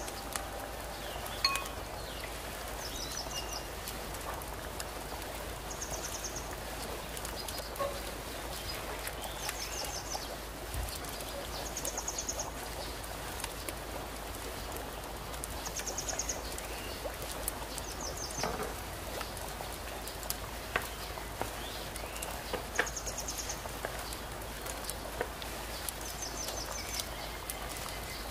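A short, high, buzzy chirp from a small animal, repeating about every two seconds, with scattered light clicks and taps beneath it.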